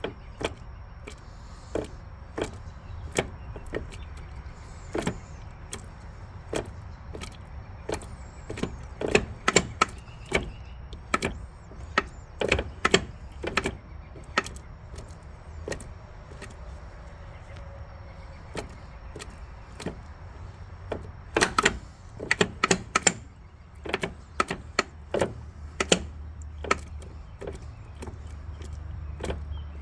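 Spartan locker in a Dana 30 axle making sharp, irregular bangs and pops over a steady low rumble, coming in bunches. The owner suspects one side unlocks unevenly because the pin is not aligned.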